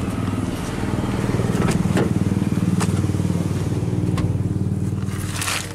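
A nearby engine running steadily, swelling a little about two seconds in and easing off, with a few light clicks and a short scraping rustle near the end.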